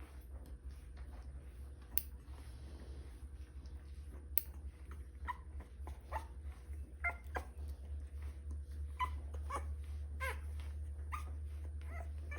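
Three-week-old French bulldog puppy whimpering in short, high squeaks that come thick and fast through the second half. Two sharp clicks sound before the squeaks begin.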